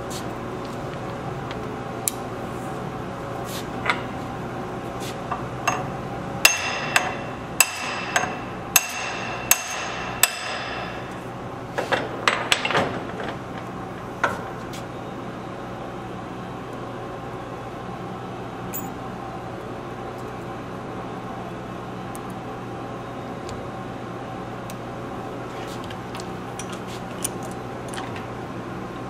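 Hammer striking a brass punch against the yoke of a front axle shaft's universal joint held in a steel vise, knocking the yoke over to make room for the joint's retaining clips. A few single taps come first, then a run of about six ringing metal strikes, a quick cluster and one more strike, with light clicks near the end.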